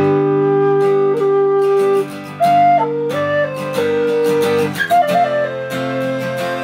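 Rosewood Native American flute in the key of G playing a slow melody of long held notes, with a short break about two seconds in, accompanied by a strummed acoustic guitar.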